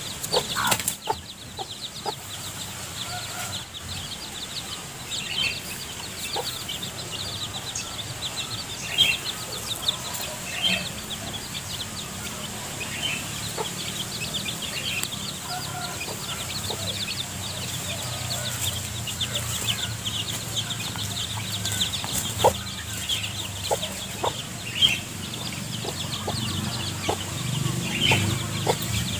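A mother hen scratching and pecking through dry leaf litter, with rustles and clicks, while her chicks give repeated short high peeps. The hen clucks, more strongly near the end.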